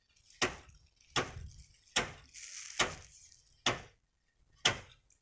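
A long pole jabbing at a boulder lodged in a sand-mine cliff face to knock it loose, making six sharp knocks about one every 0.8 seconds.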